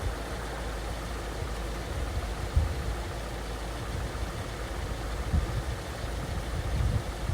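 Steady low rumble of a car heard from inside its cabin, engine and road noise with a few soft low thumps.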